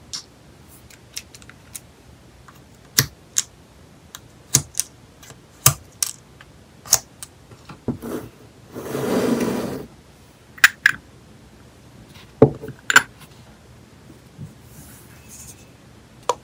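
Sharp light clicks and taps of clear plastic nail tips being picked up and set down against a plastic tip case, with a second-long scrape about nine seconds in.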